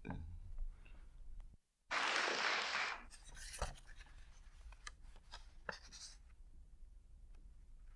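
Paper rustling and scratching, as sheets are handled between poems. One louder rustle lasts about a second, just after a brief dropout to dead silence, and small clicks and softer scratches follow.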